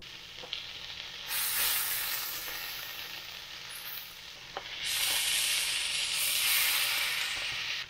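Shrimp and chicken sausage sizzling in a nonstick frying pan. The sizzle grows louder about five seconds in, as rice and vegetables are tipped into the pan.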